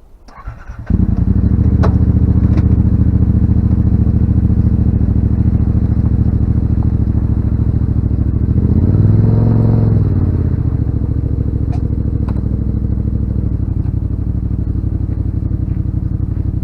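Yamaha RMAX side-by-side's engine starting about a second in and idling steadily, with one brief rev that rises and falls in pitch about halfway through.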